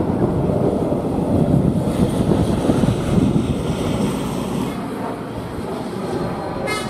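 Sperry hi-rail truck rolling past on the rails, its engine and wheels heard as a rumble under heavy wind buffeting the microphone. A horn starts to sound right at the end.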